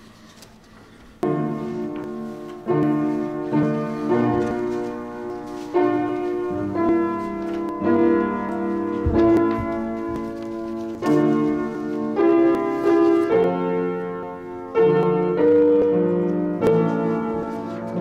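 Piano playing slow chords, starting about a second in, each chord struck and then fading.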